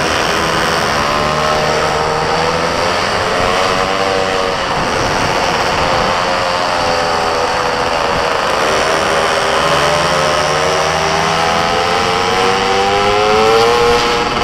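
Small racing engine running hard on track, its pitch dipping and climbing again several times as it slows for corners and accelerates out, climbing highest near the end. A steady rushing noise runs underneath.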